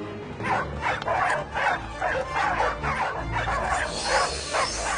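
Dogs barking and yipping in a rapid string of short calls, about four a second, over background music.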